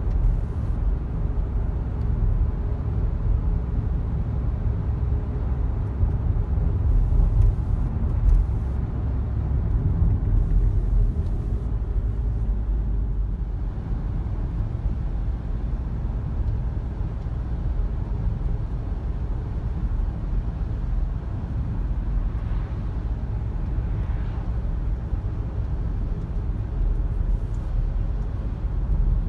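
Car on the move, heard from inside the cabin: a steady low rumble of engine and road noise.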